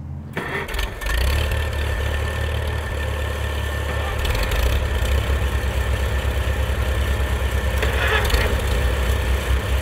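Custom triple-engine Farmall tractor, built from three Model A Farmalls with their four-cylinder gasoline engines, running as it drives. A steady low putter sets in just after the start and grows louder about a second in.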